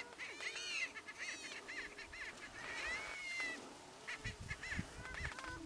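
Greater prairie chickens calling: a rapid series of short cackling yelps, with one longer whine about three seconds in. A few low thuds come near the end.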